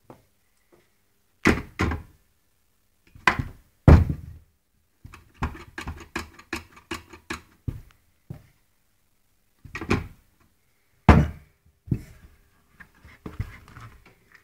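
Hard knocks and clunks of an old bakelite telephone being handled, with a quick run of a dozen lighter taps in the middle and a few more knocks near the end.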